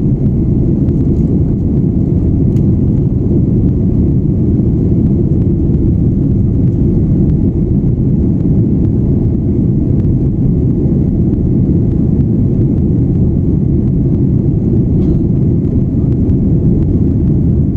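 Steady low rumble of a jet airliner's engines and airflow heard from inside the passenger cabin during the climb after takeoff.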